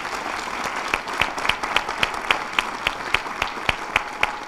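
Audience applauding, with one person's sharp, close claps standing out above it at about four a second from about a second in.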